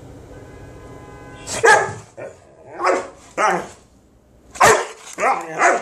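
Dog barking in a run of about six loud, short barks, starting about a second and a half in, at a person staring at it.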